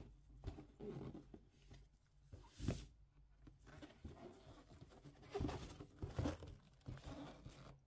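Cardboard shoe box being handled and turned over: irregular scraping and rubbing of hands on cardboard, with a few light knocks, the strongest one about two and a half seconds in.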